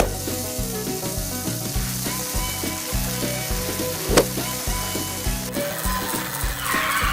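A steady sizzling hiss over background music with a steady beat, with a single click about four seconds in and the hiss growing brighter near the end.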